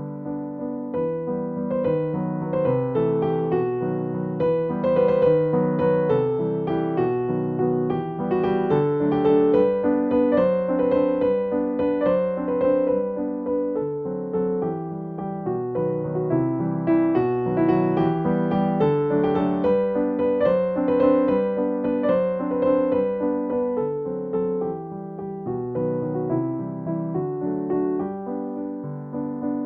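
Background piano music: a gentle, steady stream of notes.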